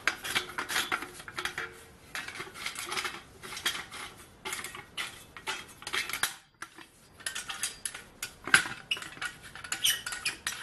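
Steel folding camp shovel being handled, its metal parts clinking and rattling in a run of light clicks and knocks. There is a short pause about six seconds in and a sharper clank a couple of seconds later.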